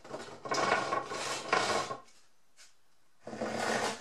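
Hand saw ripping a cedar shiplap board lengthwise in rasping back-and-forth strokes, which stop about halfway through and start again shortly before the end.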